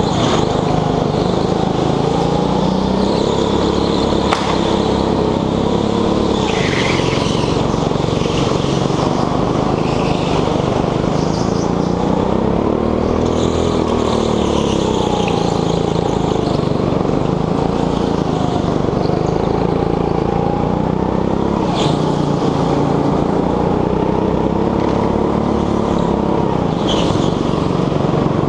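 Petrol go-kart engine heard from on board, its pitch rising and falling again and again as it comes off the throttle for corners and revs back up on the straights. A few brief high squeals sound about 7 seconds in, and again near 22 and 27 seconds.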